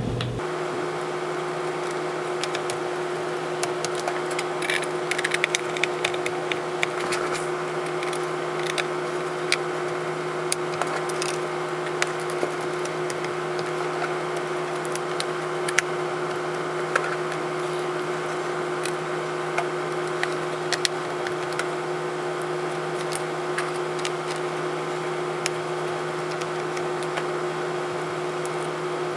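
Small screws being driven back into a MacBook Pro's bottom plate: scattered light clicks and taps of the screwdriver and screws, over a steady hum with several tones.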